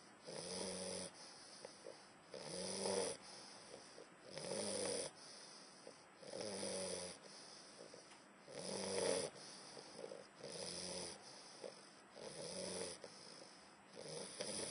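English bulldog snoring as he falls into deep sleep, in a steady rhythm of about one snore every two seconds.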